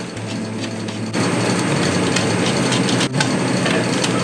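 Cordless power screwdriver running steadily, backing out the screws that hold an AIO radiator in the front of a PC case; it starts about a second in, with a brief break near three seconds.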